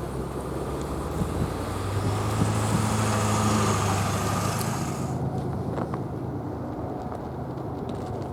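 A vehicle engine passes with a steady low hum that builds to a peak about three seconds in and then eases off. A hiss rises with it and cuts off suddenly about five seconds in.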